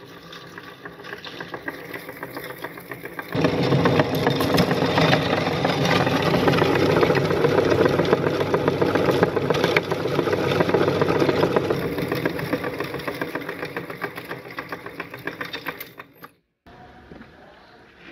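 Belt-driven metal meat grinder running and crushing hard orange candy through its plate: a steady machine drone thick with crackling and crunching. It gets markedly louder about three seconds in and breaks off suddenly near the end.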